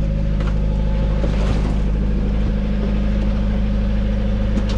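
Fishing boat's engine running steadily, with a few soft knocks as fish are tipped out of a crate onto the deck.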